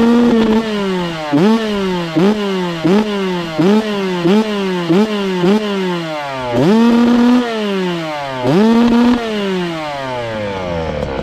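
Suzuki RM 65 dirt bike's small two-stroke single revved in quick throttle blips, about one every 0.7 s, then held high twice before dropping back to idle near the end. The owner is revving it to show a bad bog from the carburetor.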